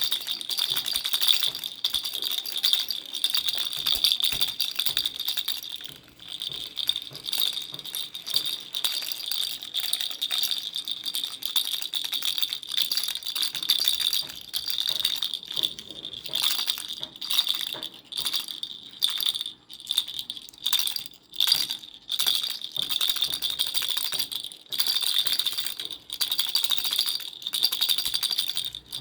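A baby's toy rattle being shaken, a dense, bright rattle of beads or pellets inside. It runs steadily at first, then comes in shorter shakes with brief pauses from about the middle on.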